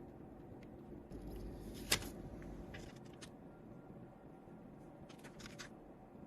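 Faint handling noises: one sharp click about two seconds in, with a few brief light scrapes and rustles, over a low steady hum.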